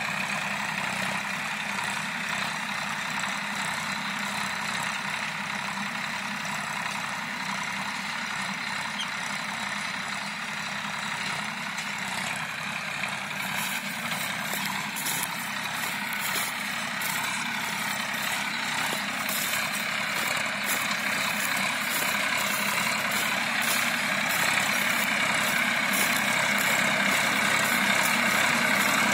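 Tractor diesel engine running steadily while pulling a cultivator through a harvested paddy field, growing louder as it comes closer. Faint regular ticks join in about halfway through.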